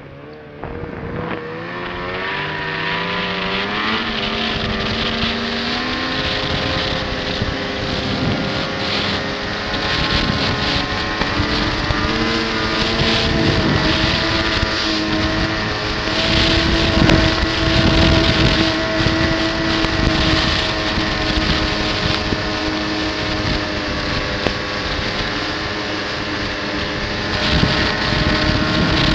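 Snowmobile engine accelerating away from low speed, its pitch climbing over the first five seconds or so, then running steadily at cruising speed.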